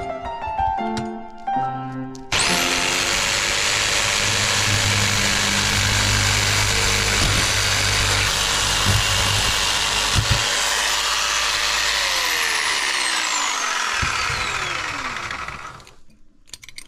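A power tool starts with a rising whine, runs steadily at full speed with a low hum, then is switched off and winds down with a falling whine over a few seconds. Short piano music plays before it starts.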